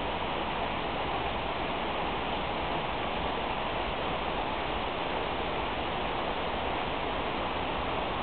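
Light tropical rain falling steadily on dense foliage: an even hiss with no breaks.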